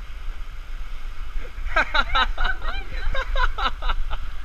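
A high-pitched voice giving a quick run of short cries, about four a second, starting about a second and a half in. Under it is a steady low rumble.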